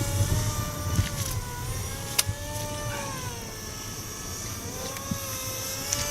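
Fuel-burning engine of an Acrowot XL radio-controlled aerobatic model plane in flight, its note wavering up and down in pitch as the plane manoeuvres. It fades a little over the first few seconds.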